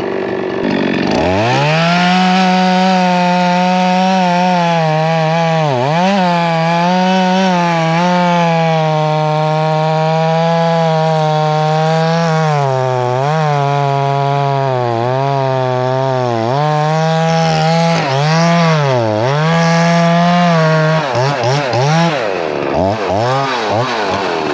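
Two-stroke chainsaw revving up to full throttle about a second in and cutting wood, its engine speed dipping again and again as it loads in the cut. Near the end the throttle is blipped and let off several times.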